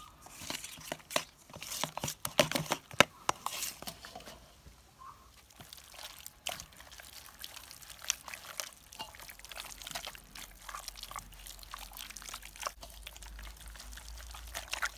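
A metal spoon clinking and scraping against a stainless steel bowl while stirring a thick mayonnaise-and-spice marinade, many quick clinks over the first few seconds. Then softer wet squelching as bare hands rub the marinade into raw lamb pieces in the bowl, with an occasional tap on the steel.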